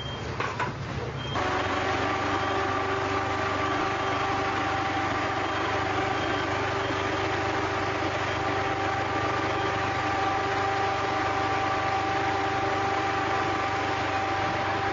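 An engine running steadily at idle, its pitch unchanging, cutting in abruptly about a second and a half in.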